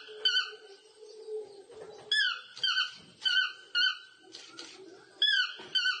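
Toucan calling: a series of about nine short, yelping notes, each dropping in pitch, given in quick pairs and triplets.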